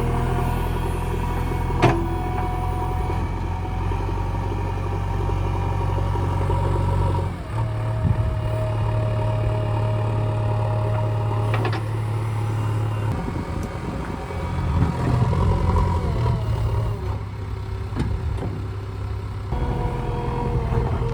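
JCB backhoe loader's diesel engine running under load, its pitch and loudness changing every few seconds as the machine works, with a couple of sharp metallic knocks.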